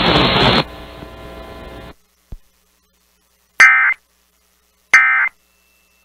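Weather radio receiver hiss drops off about half a second in and cuts out near two seconds, followed by a click. Then two short, loud bursts of Emergency Alert System SAME data tones, the end-of-message "NNNN" code that closes the alert, about a second apart.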